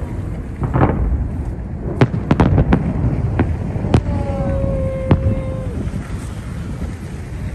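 Fireworks salute going off: sharp separate bangs, a quick cluster about two seconds in and single ones later, over a steady low rumble.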